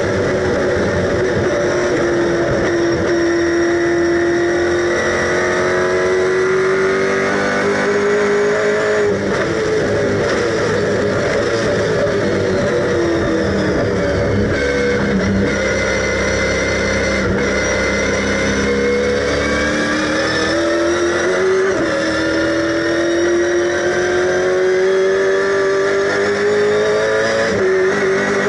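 Super 3 race car's V8 engine at racing speed, heard from inside the cabin. The revs climb steadily, fall away about nine seconds in and again around fifteen seconds as the car slows for corners, then climb again in rising steps broken by gear changes.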